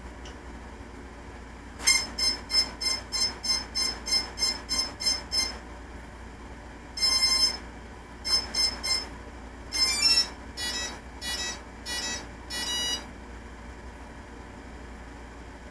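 Beep tones from the Hobby King Nova quadcopter's electronic speed controllers, sounded through its brushless motors during power-up and arming. There are about a dozen quick beeps at roughly three a second, then one longer beep and three short ones, then a short run of tones at changing pitches.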